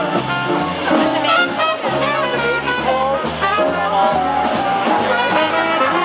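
A live swing band playing an up-tempo jazz number, with horns over a steady, stepping bass line.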